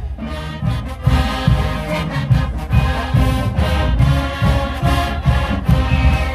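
A marching band playing: brass instruments sounding sustained chords over a regular drum beat.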